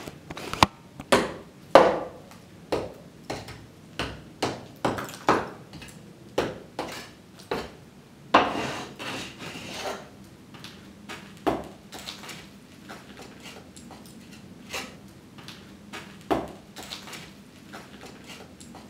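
Irregular sharp knocks and clatters of hard debris, broken bricks and tiles, being struck or tossed, about one or two a second. About eight seconds in there is a longer clattering crumble, and the knocks grow sparser after that.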